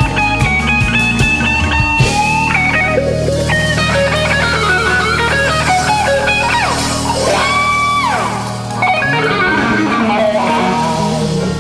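Background rock music led by a guitar playing a melody with sliding, bending notes over a steady accompaniment.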